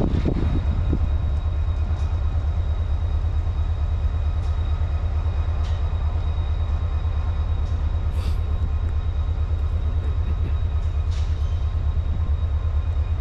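Train rolling away down the line: a steady low rumble.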